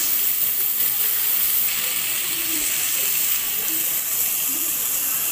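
Drumstick (moringa) pieces, onion and tomato frying in hot oil in a kadai: a steady sizzling hiss.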